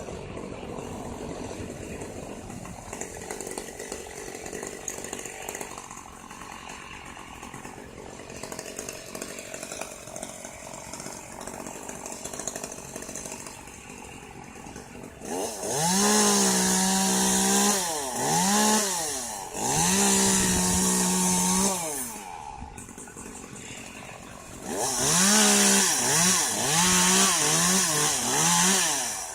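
Chainsaw, faint for the first half, then revved hard in three bursts from about halfway, its pitch climbing and falling with the throttle; the last burst wavers up and down quickly.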